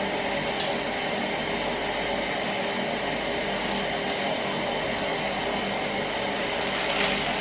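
Steady droning hum with hiss throughout. Near the end, a plastic noodle packet crinkles as it is handled.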